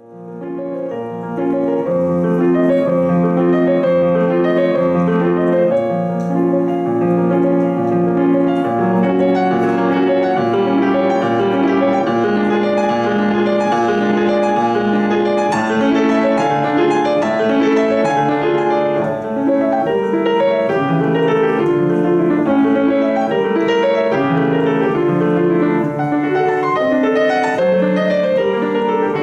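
Solo grand piano played continuously: a dense stream of quick notes over a steady lower part, even in loudness, fading in at the start.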